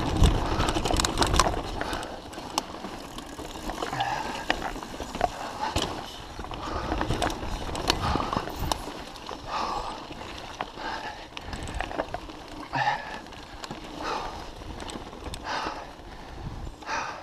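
Mountain bike ridden fast over dirt singletrack: tyre noise with frequent rattling and clicking of the bike over bumps, roughest in the first couple of seconds, with the rider's heavy breathing at intervals.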